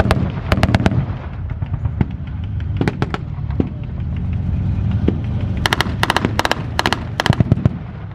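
Blank gunfire at a battle reenactment: a short machine-gun burst, scattered single rifle shots, then rapid machine-gun bursts in the last couple of seconds. Underneath is the steady low rumble of M4 Sherman tanks running and moving on their tracks.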